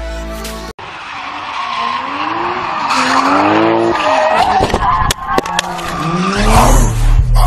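A car drifting, its engine revving up and down while the tyres squeal and skid. Near the end a heavy bass beat of music comes in underneath.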